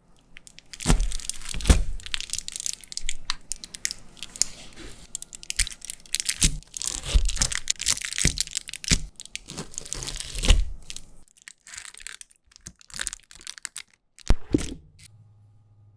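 Close-up crackling, crunching and tearing of potato chips and their crinkly packaging, in a dense run of sharp snaps that thins out after about eleven seconds, with a last cluster near the end.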